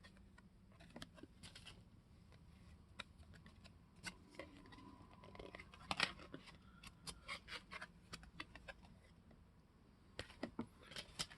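Trading cards being handled and flipped through: faint, scattered clicks and light scraping of card stock, with a cluster of quick clicks near the end.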